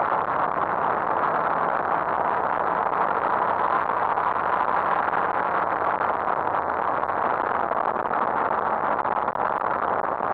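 Car at speed: a steady, loud rush of engine, road and wind noise with no distinct revs or shifts, dipping briefly about nine seconds in.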